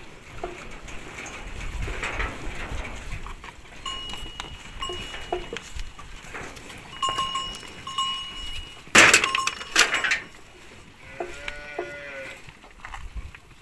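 A herd of cattle crowding close, with a cowbell ringing in short clanks over several seconds, two loud knocks or scuffles about nine and ten seconds in, and one short call from an animal a little after.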